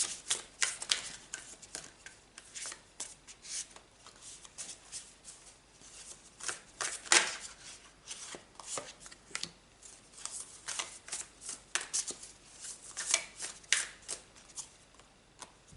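Tarot cards being shuffled and handled by hand: an irregular run of short papery rustles and taps.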